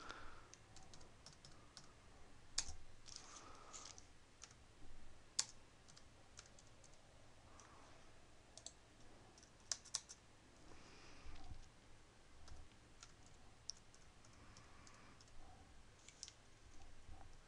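Faint, irregular clicks of typing on a computer keyboard, a key or a few keys at a time with pauses between.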